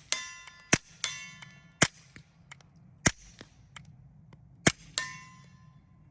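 Suppressed SIG P322 .22 LR pistol firing four sharp, quiet shots roughly a second apart. A steel target rings back a fraction of a second after the hits, three times: right at the start, about a second in, and near the end. Two shots in the middle get no ring, so they missed the steel.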